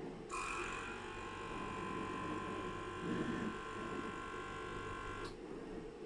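Stepper motor of a Dobot robot-arm and conveyor sorting line whining steadily for about five seconds: a chord of high, even tones that starts just after the opening and cuts off suddenly with a click near the end.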